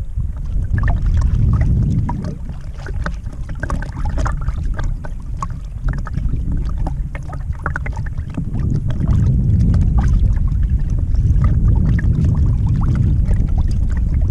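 Wind buffeting the microphone in a strong, gusty rumble, with small waves lapping and slapping irregularly against a small boat's hull.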